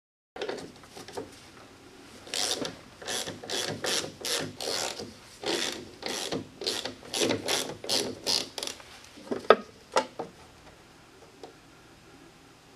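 Ratchet wrench worked back and forth in quick strokes, about two a second, followed by two sharp metallic clicks near the end.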